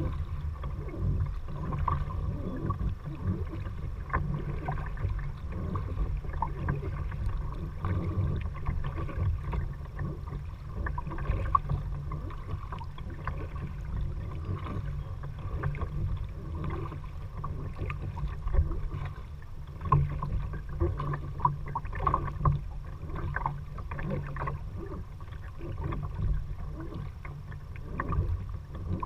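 Kayak paddling: paddle blades dipping and splashing in the water, with irregular small knocks and drips, over a steady low rumble.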